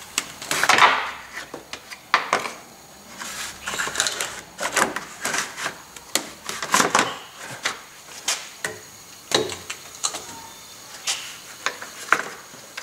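Plastic lower radiator shroud of a 2015 Nissan Titan being slid and worked into place by hand: a run of irregular plastic scrapes, rubs and clicks.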